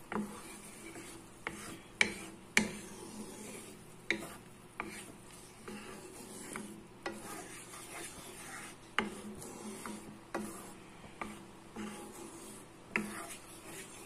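Wooden spatula stirring a thick ketchup and honey sauce in a nonstick frying pan, scraping and knocking against the pan at irregular moments.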